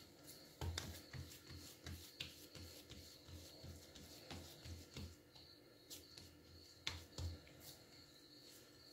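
Hands rolling and patting a ball of almond cookie dough against a granite countertop: faint, soft thuds about two to three a second, with two sharper taps.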